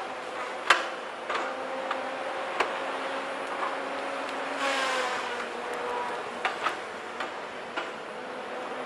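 Cat 521 tracked forest harvester at work: a steady engine and hydraulic whine, broken by sharp knocks and clicks, the loudest under a second in. About five seconds in there is a hiss as the whine drops in pitch.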